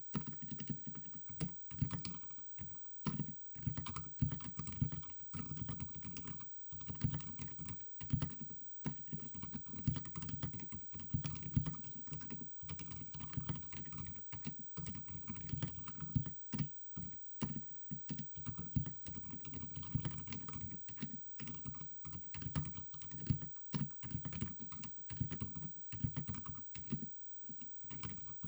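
Continuous typing on a Keycool KC84 mechanical keyboard with Outemu silent white linear switches and XDA-profile keycaps: a fast, uneven stream of soft, low-pitched keystrokes with little sharp clack, as the dampened low-noise switches bottom out and return, with brief pauses between bursts.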